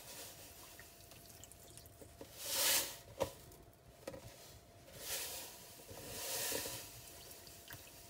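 Coarse dishwasher salt poured from a pack into the water-filled salt reservoir of a Bosch dishwasher, in three short grainy, hissing pours about two and a half, five and six and a half seconds in, with a sharp click just after the first. The salt is displacing water out of the reservoir.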